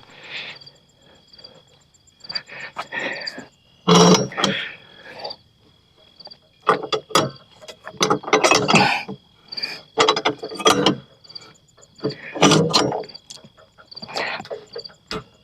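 Irregular knocks, clunks and scraping of rough-sawn wooden slabs being handled and shifted. Crickets chirp steadily in the background.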